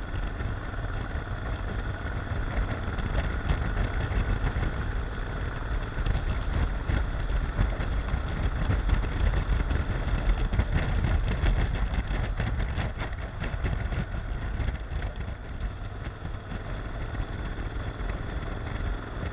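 Honda NC750X parallel-twin motorcycle running at road speed, its engine steady under a heavy low rumble of wind buffeting the microphone.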